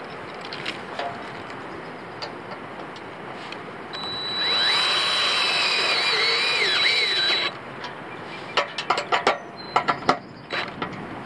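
Cordless drill driving a screw through a metal rope cleat into an aluminium pole: the motor runs for about three seconds with its pitch wavering under load, then stops suddenly. A quick run of sharp clicks follows near the end.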